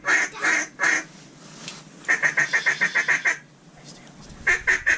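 Duck call blown in quacks: three loud quacks, then a fast run of about ten short quacks about two seconds in, and another string of quacks starting near the end.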